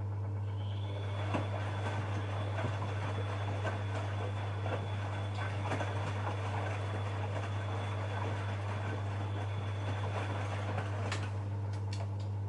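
Bosch Maxx front-loading washing machine in its wash cycle: the drum motor whines steadily for about ten seconds as it turns the drum, over irregular sloshing and clicking, then stops near the end. A steady low hum runs underneath.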